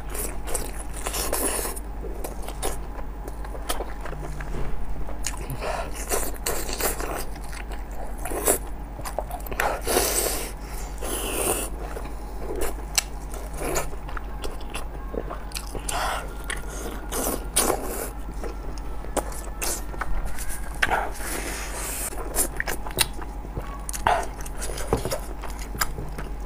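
Close-miked eating: biting into and chewing spicy pork large intestine stuffed with small intestine, wet mouth smacks and clicks coming at an irregular pace.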